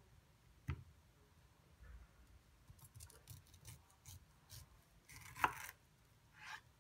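Global chef's knife cutting small pieces of pineapple flesh on a plastic cutting board: a tap of the blade on the board about a second in, then a run of faint crisp cuts through the fruit, and a sharper knock of the blade on the board near the end.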